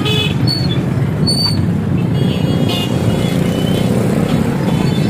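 Road traffic of motorcycles and cars moving off across a railway level crossing: engines running steadily, with several short horn toots in the first three seconds.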